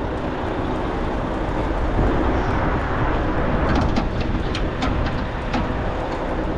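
Car-transporter truck running steadily, with a run of light clicks in the middle.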